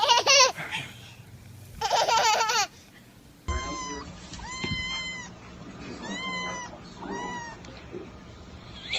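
Two short wavering bursts of a young child's voice, then a cat meowing four or five times in a row, each call high and about half a second long.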